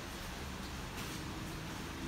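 Low, even background noise of a room with no distinct event standing out.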